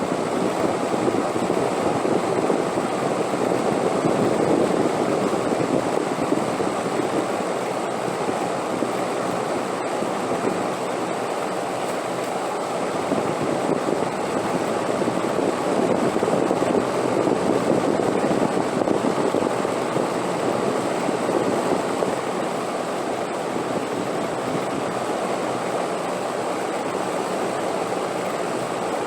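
Steady wind noise, a continuous rush that swells and eases slowly, with a faint high steady whine.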